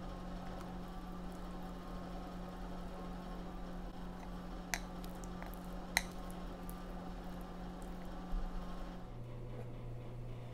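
Thick chocolate cake batter pouring and being scraped from a glass mixing bowl into a round cake pan, with two sharp clinks about five and six seconds in, over a steady low hum.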